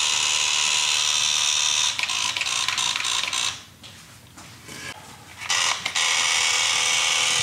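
Cordless drill running at full speed in two long runs, the first about three and a half seconds, then a pause of about two seconds before it starts again.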